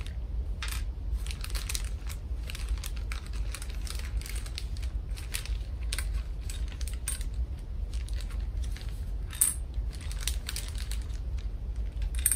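Small hard plastic Playmobil figures and accessory parts clicking and clinking against each other and the table, with a plastic bag rustling, in many irregular small clicks; one sharper click about nine and a half seconds in. A steady low hum runs underneath.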